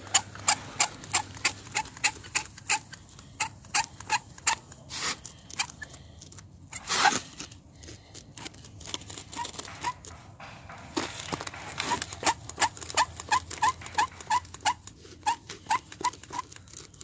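Hand-held mortar grout gun being worked, its trigger squeezed over and over, giving short clicks about three times a second as mortar is pushed into the stone joints. The clicks stop briefly twice, with one longer rasping sound about seven seconds in, and in the second half many clicks carry a short squeak.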